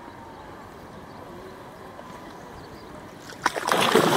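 A hooked tambacu thrashing and splashing at the water's surface close to the bank, a sudden loud burst of splashing about three and a half seconds in. Before that there is only a quiet outdoor background.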